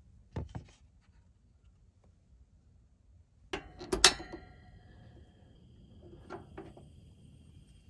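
Mr. Heater Buddy portable propane heater being lit: the control knob is pushed and turned with a run of sharp clicks, the loudest a snap of the igniter about four seconds in that lights the pilot. A few softer knob clicks follow near the end, with two light clicks about half a second in.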